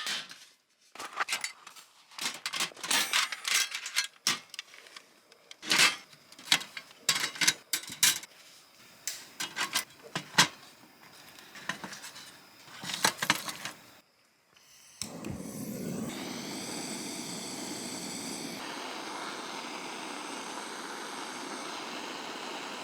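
Molded charcoal and a small metal fire stand being handled: an irregular string of clinks, knocks and rattles. About fifteen seconds in, after a brief pause and a low thump, a steady hiss starts and keeps going.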